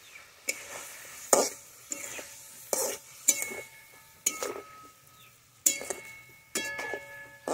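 Metal spatula scraping and knocking against a metal wok as brinjal pieces are stirred through a thick curry, about once a second, over a faint sizzle from the cooking pan.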